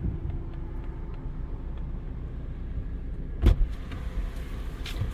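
Strong wind buffeting the microphone as a low rumble, with a faint steady hum beneath it. There is one sharp knock about three and a half seconds in.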